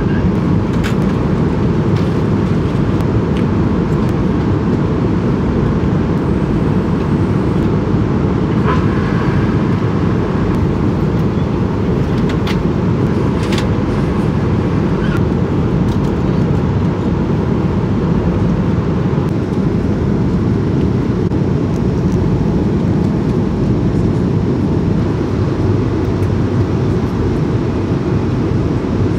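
Passenger jet cabin noise: the engines and airflow heard from inside the cabin as a steady, loud, low rush, with a few faint clicks.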